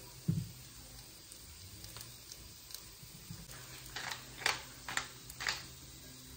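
Wooden pepper mill being twisted over a pan of scrambled eggs: four short grinding bursts about four to five and a half seconds in. A single low thump comes just after the start.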